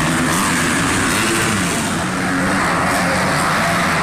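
Motocross dirt bike engines revving as the bikes race around the track, their pitch rising and falling with the throttle.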